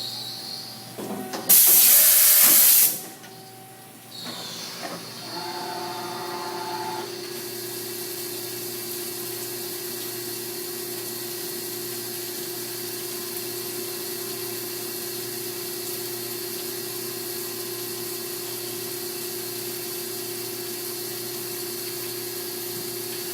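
1992 Mazak V414 CNC vertical mill running its program: a very loud hiss for about a second and a half near the start, then after a short lull the machine settles into a steady tone with a constant hiss over it.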